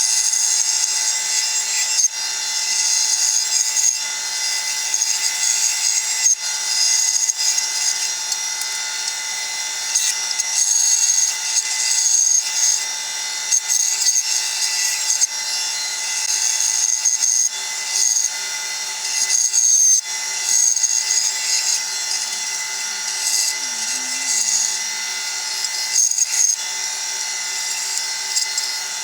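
Bandsaw running and cutting through wood: a steady motor and blade hum under a hissing cutting noise that swells and eases as the wood is fed through.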